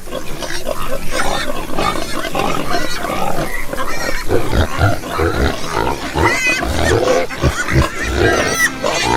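A group of domestic pigs grunting over one another, with high-pitched squeals breaking in about six seconds in and again near the end.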